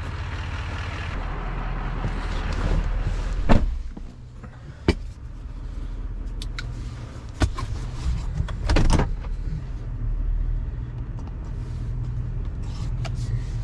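A truck's engine idling steadily, with a door shutting in one loud thump about three and a half seconds in, after which the outside noise drops away. A few lighter clunks and clicks follow from inside the cab.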